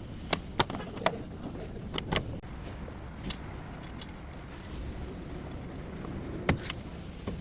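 Steady low rumble of a vehicle with a handful of sharp clicks or knocks, several in the first two seconds and a louder one near the end.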